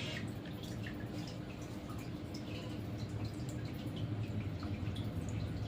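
Scattered small, irregular clicks over a steady low hum.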